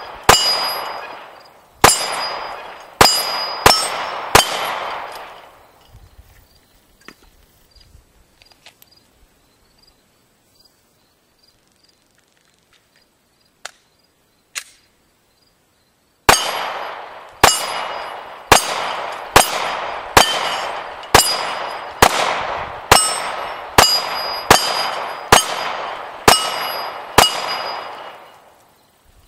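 Glock 19 9mm pistol shooting steel targets, each shot followed by the ringing clang of a hit plate. Five shots come in the first few seconds, then a pause of about ten seconds with two faint clicks, then a steady string of about a dozen shots at roughly one a second.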